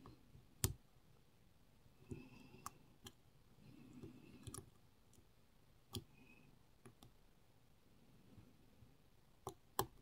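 Faint scraping and scattered light clicks of a hook pick and tension wrench working the pins inside a pin tumbler lock cylinder, the sharpest click about half a second in. The lock gives little feedback, so the clicks of pins setting are small.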